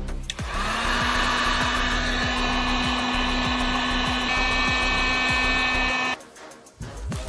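Mountain bike disc brake making its abnormal noise as the wheel spins: a steady whining squeal with a regular tick about three times a second, likely once per wheel turn, starting about half a second in and cutting off abruptly near the end.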